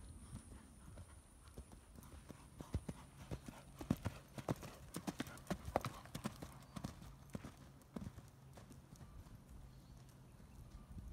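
Hoofbeats of a horse cantering on arena sand, passing close over a low crossrail jump. The beats grow loudest near the middle, then thin out and fade as the horse moves away.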